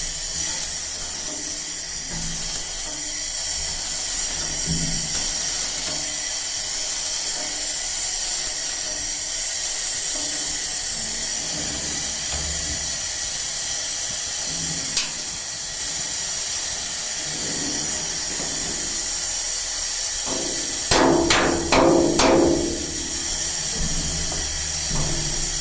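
Stick welding: the electrode arc hissing and crackling steadily on metal, then near the end several sharp, ringing hammer blows on metal.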